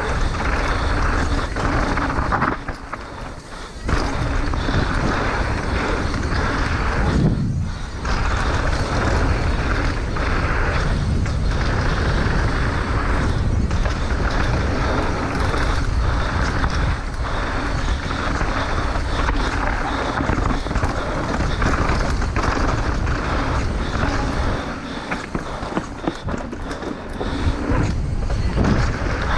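Downhill mountain bike running down a rough trail: tyres rumbling over dirt and rocks, the bike rattling and knocking, with wind on the microphone. It eases off briefly about three seconds in and again near the end.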